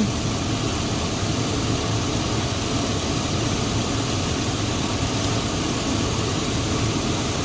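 Pickup truck engine idling steadily, a constant even hum with no breaks.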